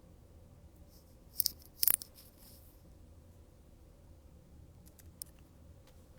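Trading cards and their plastic packaging being handled on a table: a few short crisp rustles and clicks, the loudest pair about a second and a half to two seconds in, then a couple of faint ticks near the end.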